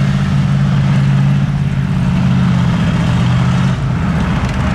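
A heavy vehicle's engine running steadily at close range, with a deep, even note that shifts slightly near the end.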